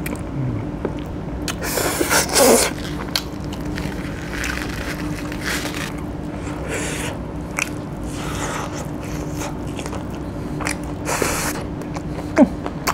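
A person eating chicken curry by hand: chewing and sucking on the food, with scattered short wet slurps and smacks over a faint steady hum.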